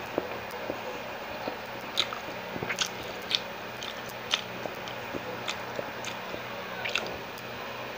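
A mouth chewing siomai (steamed pork dumplings): soft wet chewing with sharp lip-smacks and clicks every second or so, over a steady low hum.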